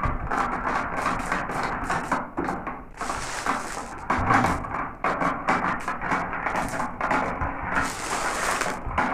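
Glass marbles rolling and clattering down a marble run track: a dense, continuous stream of small clicks and rattles.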